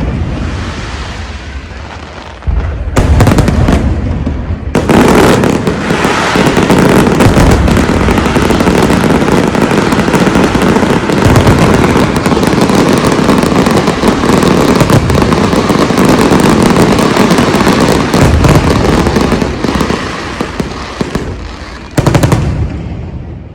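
Fireworks display: separate booming shell bursts about three and five seconds in, then a dense, continuous barrage of bangs and crackling that lasts until a final burst near the end.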